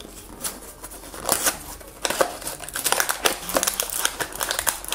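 A small cardboard blind box being opened by hand: paperboard crackles and clicks as the flap is worked open and the contents are pulled out, with crinkling of the packaging. It is fairly quiet for the first second and busier after that.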